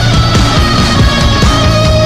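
Loud heavy rock music with a fast, pounding beat.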